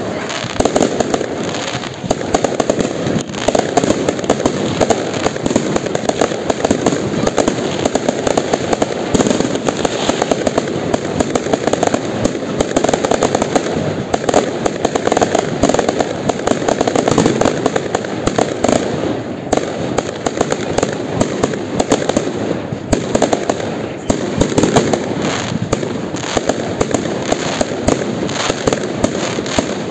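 Aerial fireworks display: a dense, unbroken run of sharp bangs from bursting shells, several a second and overlapping.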